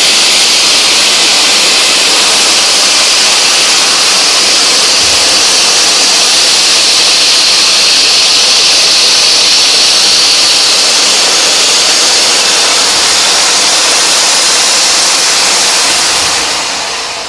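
Steam locomotive venting steam with a loud, steady hiss that dies away near the end.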